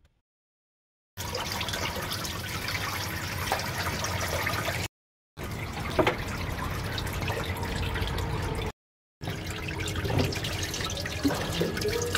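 Old automatic transmission fluid pouring in a steady splashing stream from a Toyota's transmission drain into a drain pan. The pouring is broken twice by brief silences, and there is a single knock in the middle.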